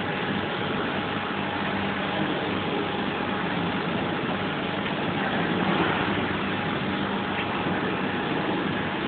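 Steady machine noise, an even whir with a low hum running under it, with no starts or stops.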